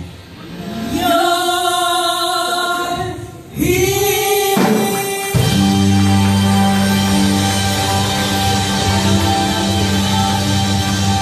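Live gospel worship song by a church band: women's voices hold long sung notes while the band drops back, then the full band with bass, drums and guitars comes back in about five seconds in.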